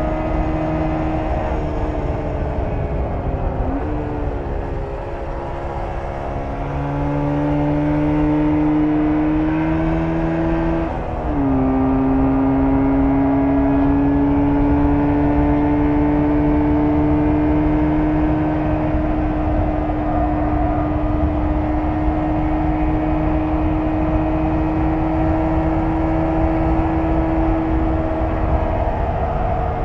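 1994 Jawa 350 (type 638) two-stroke twin on its stock exhaust, running under way: the engine note dips, climbs, then drops sharply about a third of the way in as it shifts up. It then holds a long, slowly rising pull and eases off near the end.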